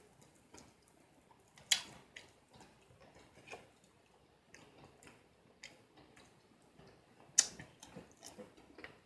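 Close-up eating sounds: fried chicken being picked apart by hand and chewed, with scattered small mouth clicks and crackles and two sharper clicks, about two seconds in and near the end.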